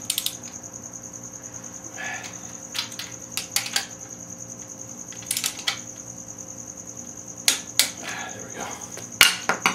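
Torque wrench ratcheting and clicking in scattered short bursts as the crankshaft main bearing cap bolts of a Ford 302 V8 are tightened to 50 ft-lb, over a steady high-pitched whine.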